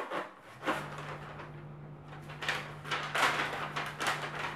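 Brown kraft paper and wood-wool packing crinkling and rustling as they are pulled and lifted out of a cardboard box, in a run of uneven bursts. A steady low hum runs underneath from about half a second in.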